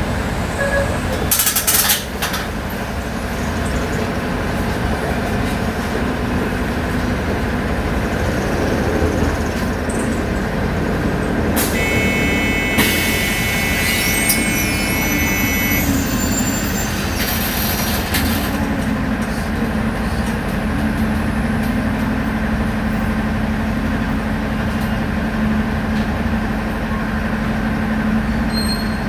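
City bus on a Volksbus 17-230 OD compressed-natural-gas chassis running, its engine note rising and falling as it pulls and eases off. A short burst of air hiss comes from the pneumatics about a second and a half in. A longer hiss comes from about twelve to eighteen seconds in, with a steady electronic tone over it.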